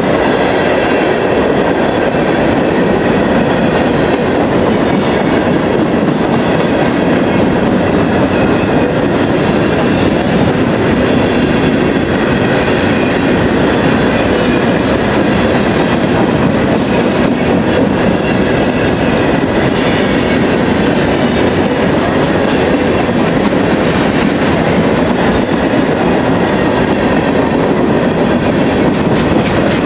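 CSX freight train's covered hopper cars rolling steadily past, with a continuous rumble and clatter of steel wheels on the rails.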